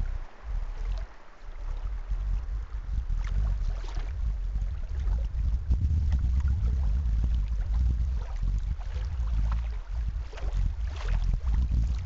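Wind rumbling on the microphone, easing briefly about a second in, with water lapping and splashing against the bow of a moving kayak.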